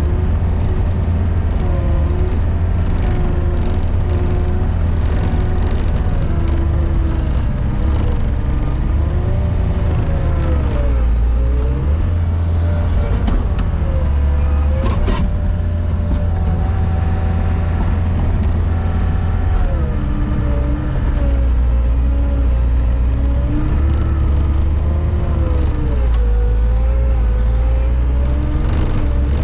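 Gehl RT65 tracked skid steer's diesel engine running steadily under load while pushing through deep snow, with a whine that rises and falls several times over the steady drone.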